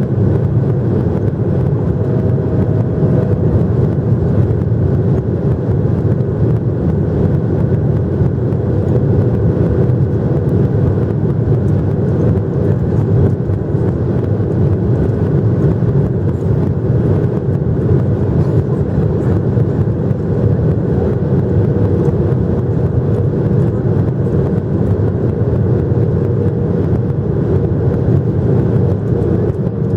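Steady, loud low cabin drone of a Boeing 737-800 in flight: engine and airflow noise with a faint steady hum, unchanging throughout.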